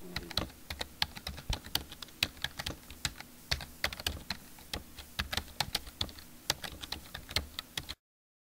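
Computer keyboard typing: quick, irregular key clicks, several a second, that stop abruptly about eight seconds in.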